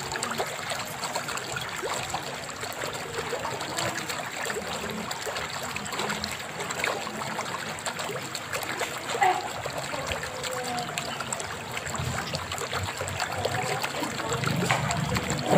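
Steady trickling water from the park pond, with a thin high steady tone above it and a brief louder sound about nine seconds in.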